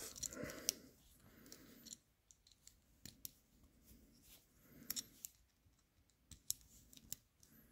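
Faint handling of a 3D-printed plastic pick handle with its steel pin and grub screws: a soft rustle at first, then scattered sharp little clicks of plastic and metal parts knocking together.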